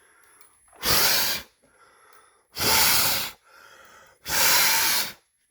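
Three hard blows of breath, each under a second and about a second and a half apart, with faint breathing between them.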